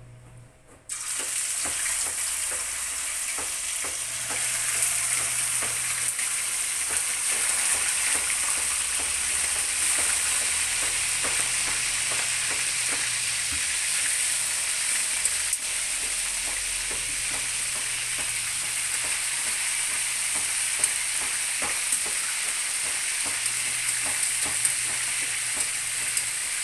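Soy-marinated pork pieces sizzling in hot oil in a wok as they are first fried. The steady sizzle starts suddenly about a second in when the meat goes into the oil, with scattered light clicks over it.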